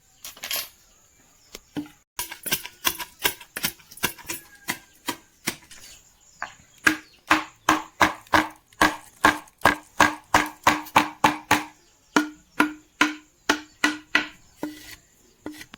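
A knife chopping on a cutting board: a long run of sharp, even strikes, about three to four a second, with a few brief pauses. These are most likely the big green chilies being cut up.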